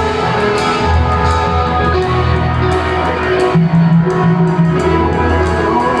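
Loud live electronic music over a concert PA, heard from the crowd: a deep bass line under held melodic notes that step from one pitch to the next.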